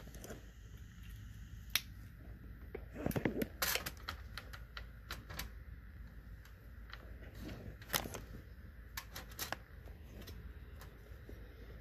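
Sharp clicks and small knocks of hands handling a metal Raspberry Pi case and plugging in its cables, loudest in short clusters, over a steady low hum.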